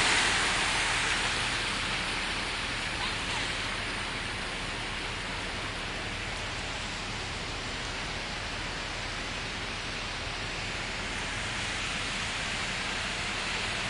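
Steady hiss of heavy rain, easing a little over the first few seconds.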